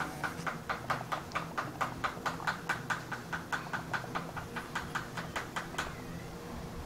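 A rapid, very regular series of sharp clicks, about four or five a second, that stops abruptly about six seconds in, over a faint steady low hum.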